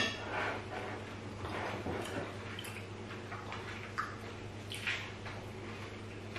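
Quiet eating and drinking sounds: a person sipping from a mug, with two short gulps about four and five seconds in, over a steady low hum.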